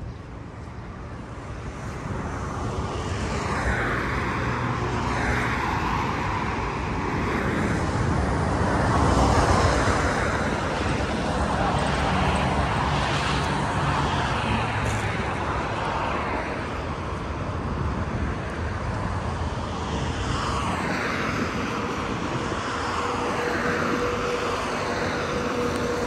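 Motor traffic on the road alongside: a steady rumble that swells to its loudest about nine seconds in, with the whoosh of passing vehicles now and then and a faint engine hum near the end.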